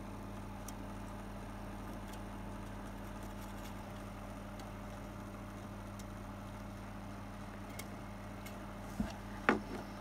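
Steady low electrical hum, with a few faint clicks and two small taps near the end.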